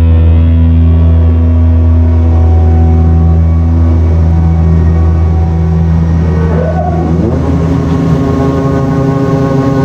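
Heavy diesel engine running steadily at close range, a deep even drone with a brief shift in pitch about seven seconds in.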